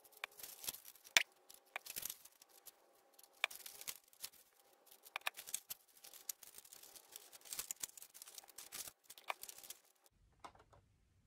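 Cardstock being handled by hand: small scattered clicks, taps and papery rustles as glued card petals are pinched together, dying away about ten seconds in.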